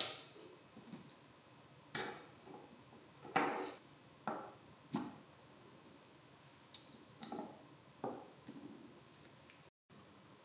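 A series of sharp clicks and taps, about seven, a second or two apart, from a cordless screwdriver's small motor and plastic gearbox housing being handled and pulled apart by hand.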